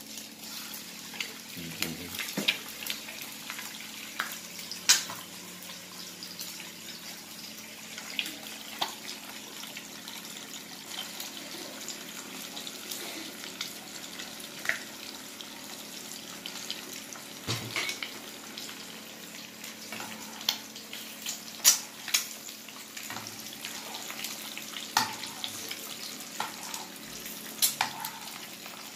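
An egg frying in oil in a nonstick frying pan: a steady sizzle with sharp pops of spattering oil at irregular moments, a few of them loud.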